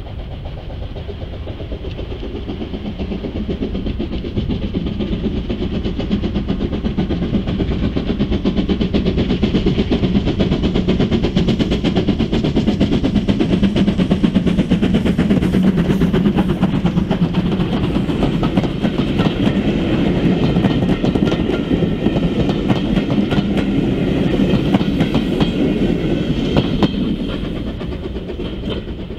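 Steam-hauled train passing close by, its wheels clattering rapidly over the rail joints. It grows louder over the first several seconds and drops away near the end.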